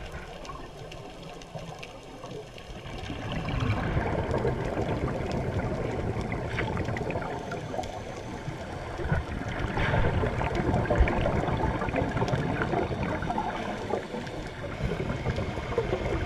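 Divers' exhaled bubbles from scuba regulators, gurgling and rushing underwater in long swells every few seconds.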